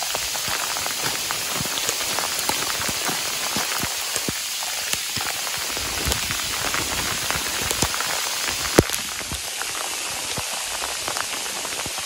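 Heavy rain falling steadily: a dense hiss made of countless close drop ticks, with one sharper tap about nine seconds in.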